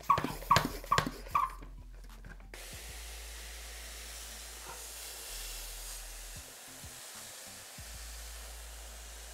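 Hand pressure sprayer (Venus pump sprayer): a few quick pump strokes, then a steady hiss of fine mist spraying into a chameleon terrarium from about two and a half seconds in.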